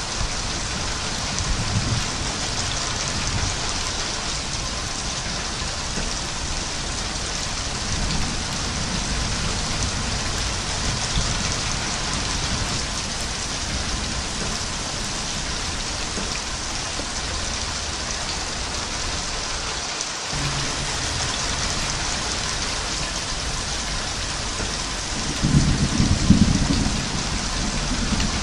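Steady heavy rain, a dense even hiss, with low rolls of thunder; the loudest roll comes near the end.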